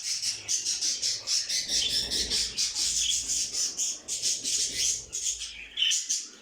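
Many small caged ornamental birds chirping and twittering at once: a dense, continuous high-pitched chatter of rapid overlapping calls.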